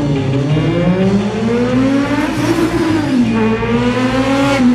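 Triumph Street Triple 675 motorcycle's three-cylinder engine revving hard as it accelerates from a standing start. The pitch climbs, drops at an upshift about halfway through, then climbs again.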